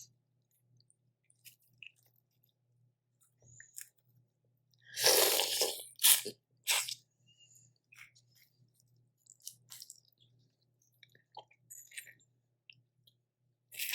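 A person eating a Cajun seafood boil close to the microphone: small clicks and crackles of chewing and of shells being cracked and peeled. There is one loud noisy burst about five seconds in, followed by two sharp clicks.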